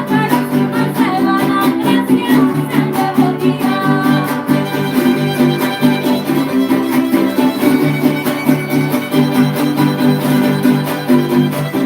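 Son huasteco trio playing a huapango instrumental passage: the violin carries the melody over the steady rhythmic strumming of the jarana huasteca and huapanguera.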